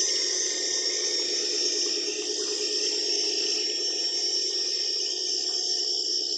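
Steady hiss of falling rain, with a high, even insect chirring over it.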